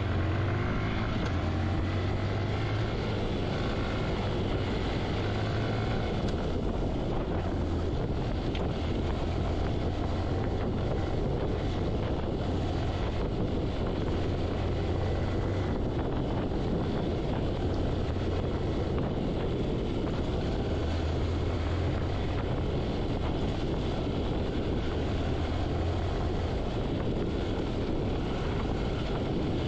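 Motorcycle engine running steadily on a trail ride, its note strengthening and easing at times, with wind buffeting the microphone.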